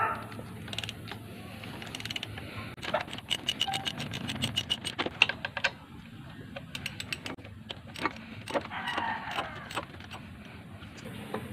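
Ratchet wrench clicking in quick runs, thickest from about three to five and a half seconds in, with scattered clicks later, as a bolt is worked loose to remove the power steering pump in a car's engine bay.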